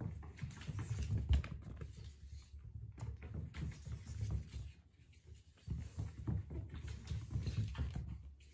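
A kitten's paws scampering and thudding on a wooden floor as it chases and pounces on a string toy: a run of irregular soft knocks, with a short lull about five seconds in before the knocks pick up again.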